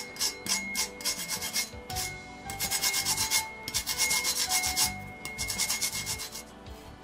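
Green lemon peel being grated on a metal grater: quick rasping strokes in several runs, with short pauses between runs.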